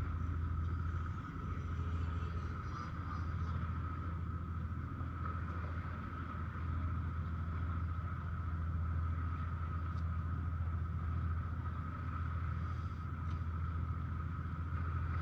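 Steady low engine drone with a constant high whine over it, holding level throughout.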